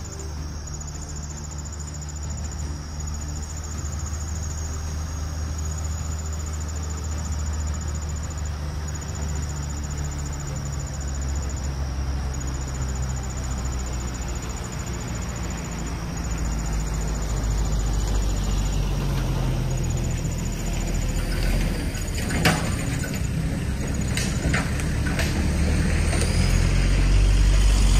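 1960 Dodge D100 pickup's engine running as the truck drives along a gravel road, growing louder in the second half. A high insect trill carries on over it, and a few sharp knocks come near the end.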